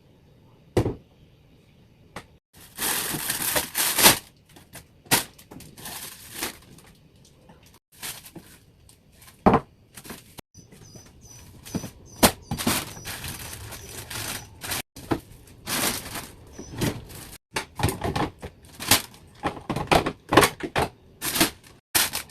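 Containers and jars knocking and clattering, with bursts of plastic rustling, as a refrigerator is cleared out into the trash.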